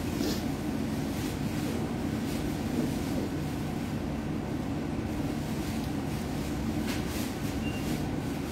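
Steady low background rumble and hum, with a few faint brief hisses.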